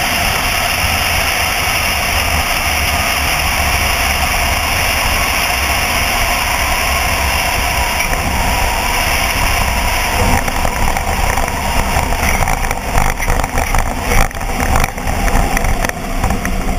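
Light aircraft's engine running throttled back under steady wind rush over the wing-mounted camera as it flares low over the runway. About ten seconds in, irregular thumps and rumbles begin as the wheels touch down and roll over the rough, patched tarmac.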